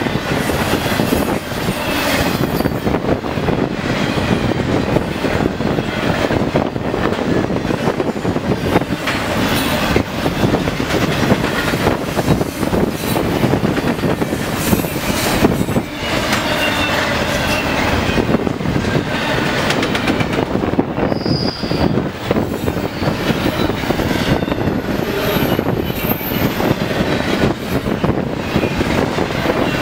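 Double-stack intermodal container cars rolling past at speed: a steady rumble of steel wheels on rail, with a quick, irregular clicking of wheels over rail joints and a faint high wheel squeal.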